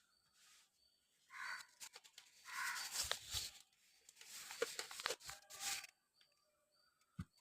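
Packaging being torn open and rustled in irregular bursts, with a short knock near the end.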